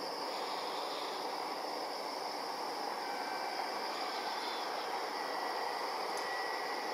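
Distant DF200 diesel-electric locomotive hauling a train of tank cars, its running noise a steady hiss, with a faint thin high tone in the second half.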